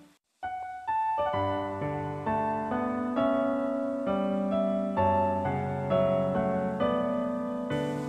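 Background piano music: after a brief silent gap, a new gentle piece begins with single struck notes and chords at a slow pace.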